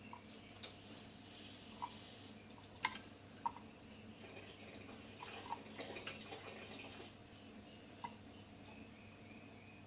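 Canary hopping between the wooden perches of its cage: scattered light taps and knocks, the loudest around three to four seconds in, with wing flutters in the middle and a couple of faint short chirps.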